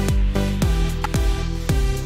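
Electronic dance music with a steady beat: a deep kick drum falling in pitch on each beat, about two a second, under sustained synth tones.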